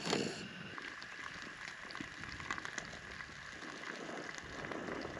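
Ground meat sizzling and crackling in a frying pan on a camp stove, a steady run of fine pops, with a brief louder noise at the very start.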